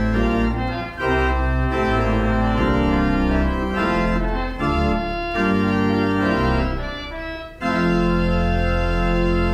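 Organ music: a series of sustained chords that change every second or so, dipping briefly about seven and a half seconds in before settling on one long held chord.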